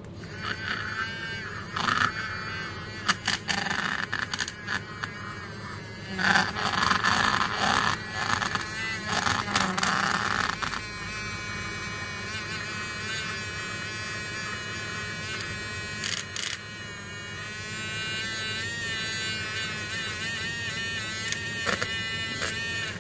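Small battery-powered Badger Paint Mixer running with its shaft in a glass jar of paint: a buzzing motor whine whose pitch wavers. For about the first ten seconds it is broken by louder rattling and clicks, then it runs steadier, and it stops abruptly at the end.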